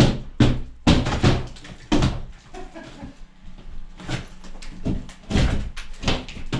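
Interior wall being smashed during demolition: an irregular string of heavy blows and crunching breaks with debris falling, thick in the first two seconds and again in the second half, with a quieter lull in the middle.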